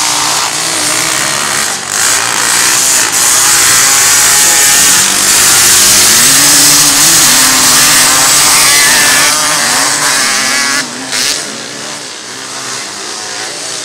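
Several three-wheeled ATC racing engines revving hard as the machines pass close by, their pitch rising and falling with the throttle. The sound is loudest through the middle and drops away at about eleven seconds.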